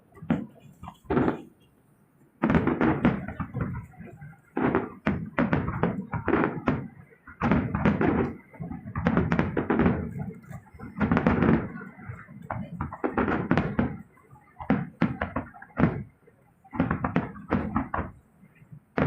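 Fireworks shells bursting overhead in an irregular run of booms, at times several in quick succession, each dying away within about half a second.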